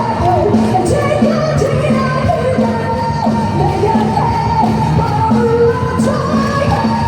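Live Korean pop-rock song played over a sound system: band backing on a steady beat of about two pulses a second, with a woman singing long held notes.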